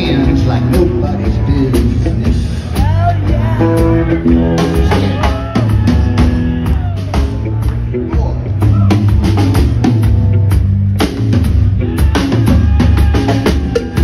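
Live rock band playing a boogie with drum kit, bass and electric guitar. The drums keep a steady driving beat under an electric guitar lead full of bent notes.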